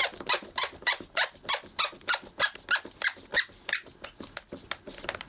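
Wood screw squeaking as it is driven into a door hinge's screw hole, in short rhythmic squeaks about three or four a second. The squeak is the sign that the screw is sticking and binding stiffly in the wood.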